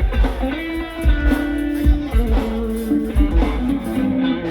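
Rock band playing live: electric guitar holding sustained lead notes over bass and drums, with low kick-drum thumps underneath.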